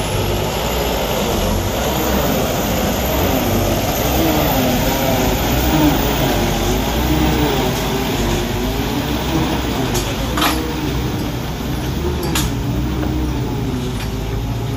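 A vehicle engine running, its pitch rising and falling over and over as it is revved. Two sharp knocks come in the second half.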